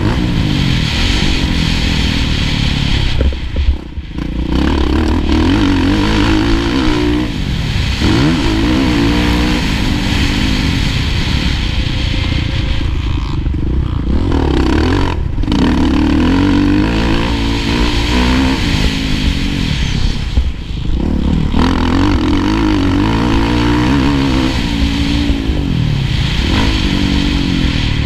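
Kawasaki KX450F single-cylinder four-stroke motocross engine at racing speed, revving up and down as the rider works the throttle and gears. The throttle is briefly shut off about four seconds in, a couple of times between thirteen and sixteen seconds, and again around twenty seconds, each time followed by the engine revving hard again.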